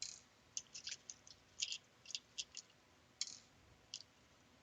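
Small M3 machine screws being picked out by hand, a series of faint, irregular light clicks and clinks.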